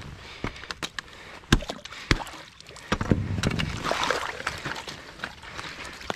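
Gloved hands splashing and sloshing in icy water in a hole broken through pond ice, feeling for a submerged trap, with loose ice pieces knocking and clinking. There are a few sharp knocks in the first two seconds, and the sloshing is busiest around the middle.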